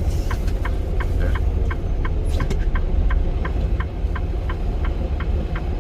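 Inside a Freightliner Cascadia semi-truck's cab: the diesel engine runs with a steady low rumble, with a rapid, even ticking of about six clicks a second over it.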